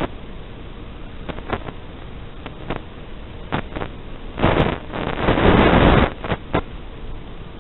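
Steady hiss from an analog FPV video link, with scattered crackles and a loud burst of static about four and a half to six seconds in as the signal breaks up.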